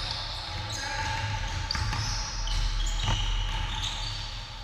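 Basketball bouncing on a hardwood gym floor, a few separate bounces, with sneakers squeaking on the court.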